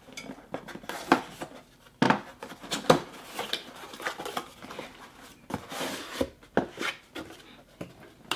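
Cardboard box being opened by hand: flaps pulled back with scraping and rustling, and the packaging inside handled, with sharp knocks about two and three seconds in.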